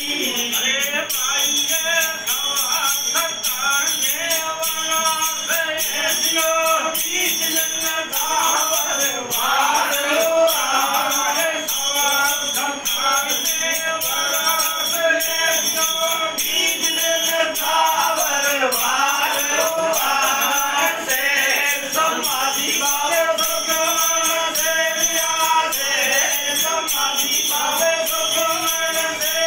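Live Kutchi devotional bhajan: a voice singing over steady, fast metallic jingling percussion, with a long-necked drone string instrument accompanying.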